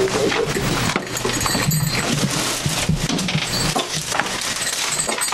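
A small pet dog making noise at the door, amid a busy clatter of knocks and rustling.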